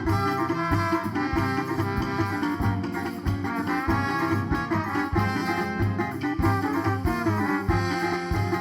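A band playing an instrumental passage of a Brazilian toada with no singing: melody lines over a steady low drum beat, about two beats a second.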